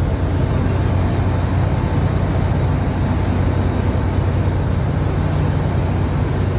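River ferry's engine running with a steady low drone, heard from on board.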